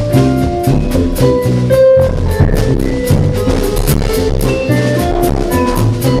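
Live band music: a drum kit keeps a busy beat with quick, even cymbal strokes over bass and melodic instrument lines.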